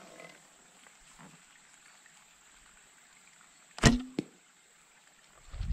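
Grozer Assyrian biocomposite recurve horse bow loosing an arrow: a single sharp snap of the bowstring with a brief low twang about four seconds in, followed about a third of a second later by a fainter knock.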